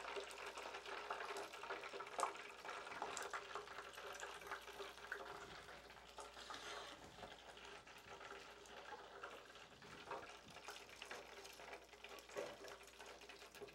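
Hot oil in a Ninja Frying System deep fryer faintly crackling and hissing as battered fish drains in the basket above it. A few light clicks come from the metal basket lid and tongs being handled.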